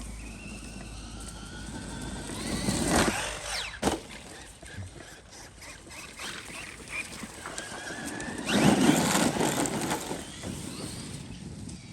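Traxxas Maxx RC monster truck's electric motor whining, rising and falling in pitch as it is throttled, with two loud stretches of tyres churning dirt about three and nine seconds in and a sharp knock near four seconds.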